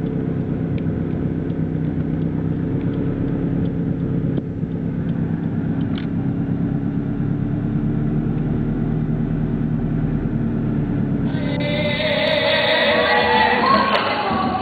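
Car engine and road noise heard from inside the cabin, a steady low rumble. About eleven seconds in it cuts suddenly to music with singing.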